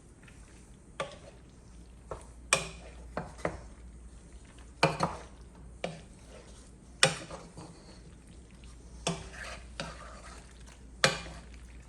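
A wooden spoon stirring noodles through Alfredo sauce in a pan, with several sharp knocks of the spoon against the pan one to two seconds apart.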